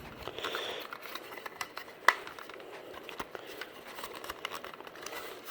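Clicks and handling noise as the test button of a Sunbeam smoke alarm is pressed, with its piezo horn giving only a faint, weak sound about half a second in. A sharp click comes about two seconds in.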